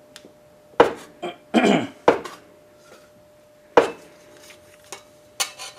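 A sheet-metal basket panel knocking and clanking against a bench vise as its bottom edge is worked by hand over a radius to bend it little by little. It gives a handful of sharp metallic knocks at uneven intervals.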